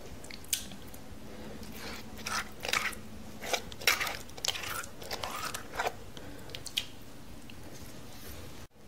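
A hand scooping and scraping freshly ground wet coconut-and-chilli paste out of a traditional stone wet grinder: a series of short, irregular wet scrapes and squishes.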